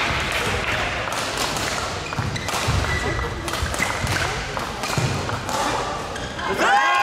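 Badminton doubles rally: rackets striking the shuttlecock with short sharp cracks, and players' feet thudding and shuffling on the court floor. A loud high-pitched squeal rises and falls near the end.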